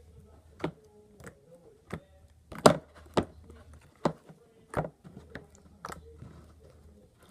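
Hands squishing and poking a big slime, making irregular sharp pops and clicks, about ten of them, the loudest about two and a half seconds in.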